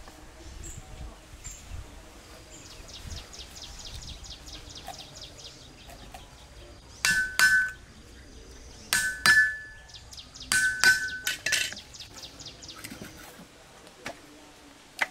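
Cleaver chopping through a river fish on a wooden chopping board: seven hard chops, mostly in quick pairs, each with a short metallic ring from the blade.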